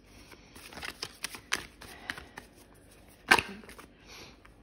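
A deck of tarot cards being shuffled by hand, giving light papery clicks and slides, with one much sharper click a little after three seconds in.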